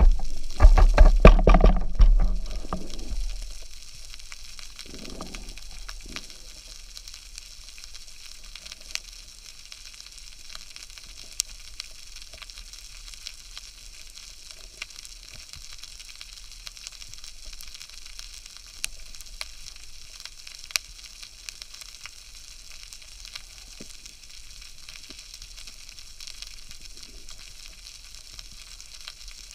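Underwater ambience on a rocky reef: a loud rush of water in the first two or three seconds fades into a steady fizzing crackle, dotted with sharp clicks.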